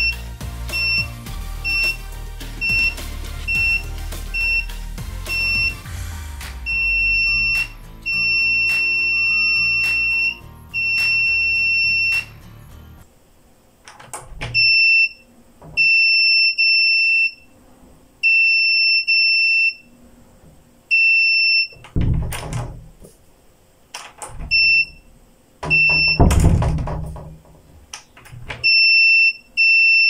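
5 V active piezo buzzer of an IR-sensor door alarm sounding one steady high tone, switched on and off as the sensor detects something in front of it: short beeps about twice a second, then longer tones, then irregular beeps. The buzzer going off is the alarm being triggered. In the later part it is mixed with several loud knocks and thuds.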